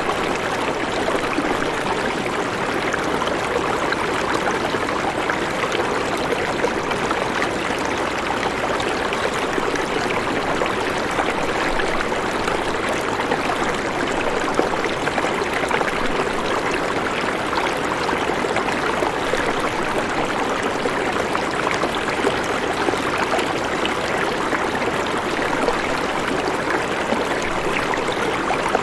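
A steady, even rush of running water, with no change in level.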